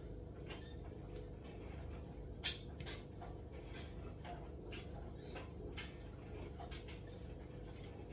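Light scattered clicks and scrapes of kitchen utensils during cupcake baking, with one sharper click about two and a half seconds in.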